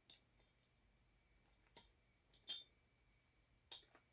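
Small metal scrap pieces from a ceiling fan clinking as they are gathered up: four or so sharp clinks, the loudest about two and a half seconds in, with a short ring.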